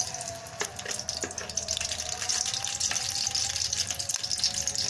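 A lump of homemade butter sizzling steadily as it melts in hot oil in a stainless steel kadai, with a few light clicks.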